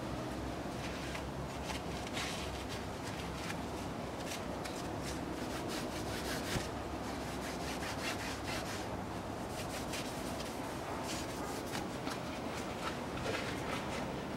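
Cloth rag rubbing and wiping over the greasy steel end of the rear axle drive shaft, a run of short scuffing strokes.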